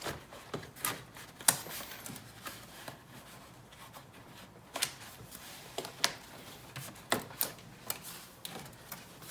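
Protective sleeve being worked onto a new car battery by hand: scattered, irregular clicks and scuffs of handling.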